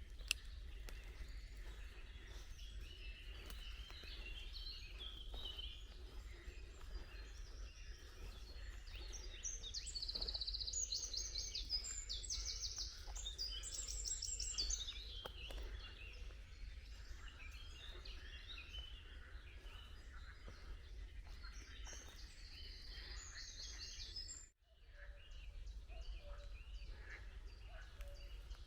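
Several birds singing and calling together: many short chirps and fast trilled phrases, busiest about a third of the way in. A steady low rumble sits underneath, and the sound cuts out for a moment near the end.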